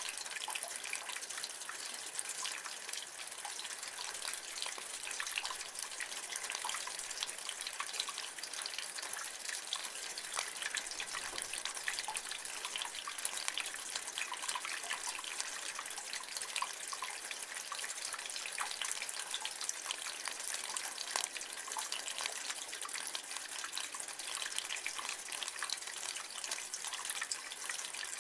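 Rainwater spilling and dripping from a roof gutter, a steady splashing trickle thick with fine drips.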